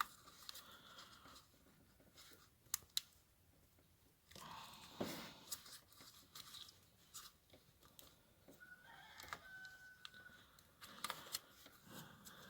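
Near silence with a few faint clicks and rustles: hands working a rubber boot and wiring connector loose on a scooter engine.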